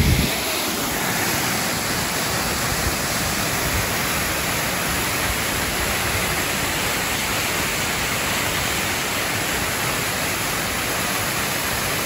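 Waterfall of two streams pouring into a pool, making a steady, even rush of water. There is a brief low buffeting on the microphone at the very start.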